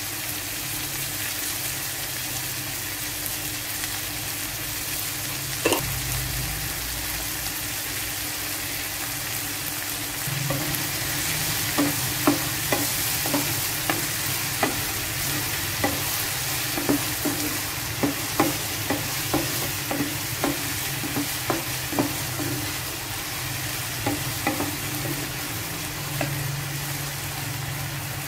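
Corn kernels sizzling in oil in a frying pan with a steady hiss. From about ten seconds in, a wooden spatula stirs them, giving many short knocks and scrapes against the pan.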